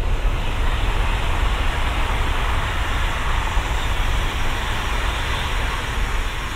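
Two coupled Jakarta–Bandung high-speed electric trainsets passing at speed: a loud, steady rush of wheel-on-rail and air noise over a low rumble. It fades as the tail goes by near the end.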